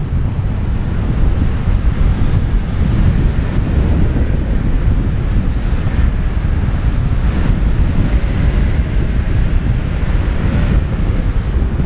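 Wind rushing over a paraglider pilot's onboard camera in flight: loud, steady buffeting of the microphone by the airflow, heaviest in the low rumble.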